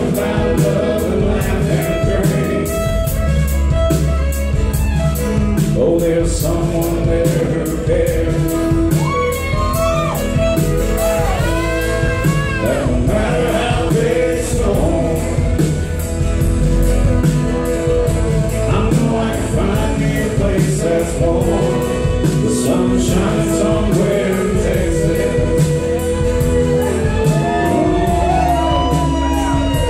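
Live country band playing: a man singing over acoustic guitar, pedal steel guitar, drums and bass, with a steady drum beat.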